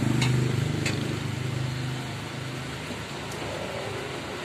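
Low engine rumble of a passing vehicle, loudest at first and fading over about two seconds, with two light clinks near the start.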